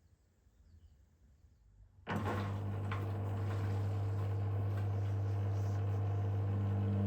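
Beko washing machine: faint and quiet at first, then about two seconds in a low machine hum starts abruptly and runs steadily at one pitch.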